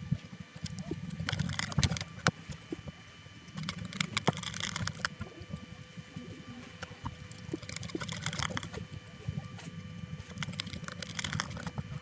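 Light, irregular clicks and taps of small plastic parts being handled: Topre keyboard sliders and keycaps being worked while silencing rings are fitted onto them. A faint steady hum lies underneath.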